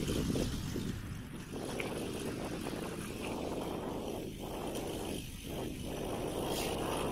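Wind buffeting the microphone of a handheld camera on a moving mountain bike, a steady low rumble with a couple of brief lulls about four and five seconds in.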